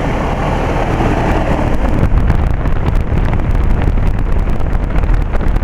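1999 Rheem 4-ton heat pump outdoor unit running in cooling mode moments after starting up: a steady hum and rush of air from the compressor and condenser fan. Heavier low rumble like air buffeting the microphone sets in about two seconds in.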